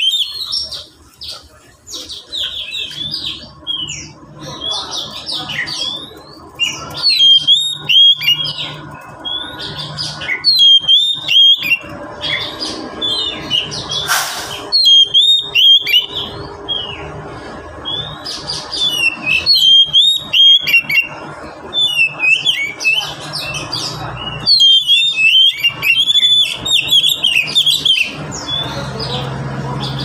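Caged Oriental magpie-robin (Kacer) singing: loud whistled and chattering phrases in short bursts every second or two, with brief gaps between them.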